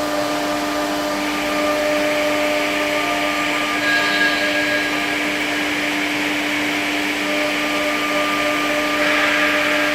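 Blue Elephant 1328 CNC nesting machine running: a steady motor hum with several steady tones under a hiss that grows louder about a second in and again near the end.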